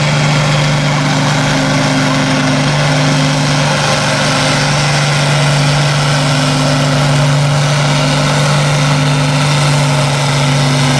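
Diesel farm tractor engine under full load, pulling a weight-transfer sled, holding a steady pitch throughout.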